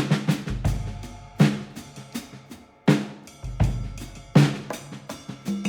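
Music led by a drum kit: kick, snare and cymbal hits in a steady beat over low sustained bass notes.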